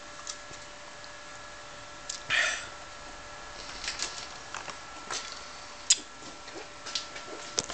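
Scattered light metallic clicks as the reversing gear and valve links of an Elliot Bay triple-expansion steam engine are moved by hand, with a short rush of noise about two seconds in and the sharpest click about six seconds in.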